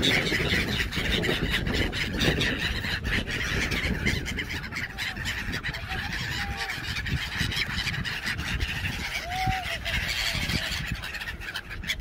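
A large flock of gulls calling over one another, with many overlapping calls and a few short separate notes, over a steady low rumble.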